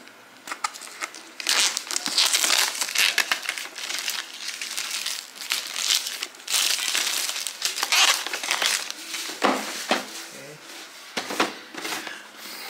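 Clear plastic shrink wrap being peeled and torn off a cardboard box, crinkling and crackling in a dense run from about a second and a half in. Near the end a few short knocks as the box is handled.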